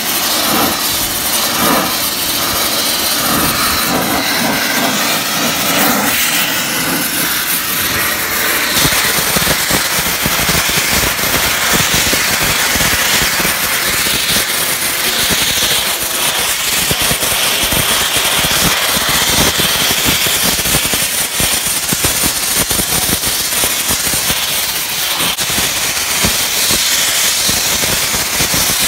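Ecoquip vapor abrasive blaster nozzle spraying a wet crushed-glass slurry against painted sheet metal: a loud, steady hiss of blasting as old paint and rust are stripped.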